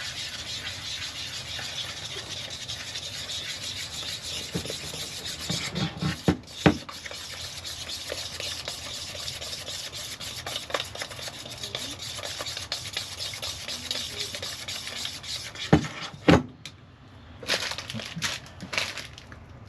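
Small hand mixer working through brownie batter in a bowl, a steady scraping that stops about sixteen seconds in. A few sharp knocks against the bowl come about six seconds in and again near where the mixing stops.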